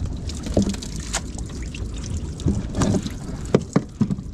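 A fishing net heavy with Indian mackerel is hauled aboard and handled in the boat, giving scattered knocks, slaps and rustles of net and fish. A few sharp knocks come near the end, over a steady low rumble and wind on the microphone.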